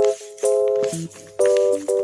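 Background music: short, bright keyboard-like chords repeated in a bouncy rhythm over a plucked bass line, with light rattle-like percussion.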